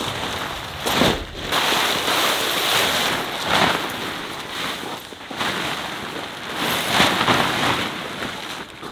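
Rustling and flapping of the fabric of a Helsport Valhall tent as it is pulled out and spread on the ground, in several loud swells.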